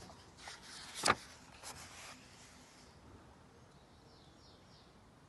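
A picture book's paper page being turned: a short rustle with one sharp snap about a second in.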